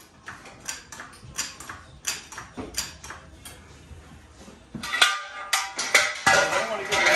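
Metal clanks, knocks and rattles as the truck's front end is lowered on a jack: a run of light knocks at first, then louder clattering with a metallic ring about five seconds in.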